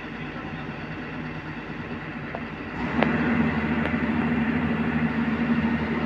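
Hyundai Robex 215 crawler excavator's diesel engine running steadily. About three seconds in, the sound jumps clearly louder, with a stronger, deeper hum.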